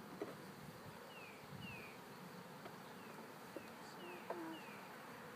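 Honeybees buzzing around an open hive, a faint steady hum, with a few light taps as a frame is handled. Short falling chirps repeat over it.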